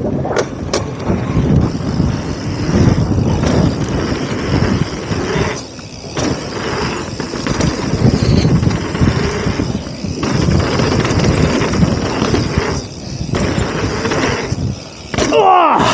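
Mountain bike being ridden fast down a dirt trail: a continuous rumble of knobby tyres on dirt with wind buffeting the camera microphone, the noise dropping out briefly several times.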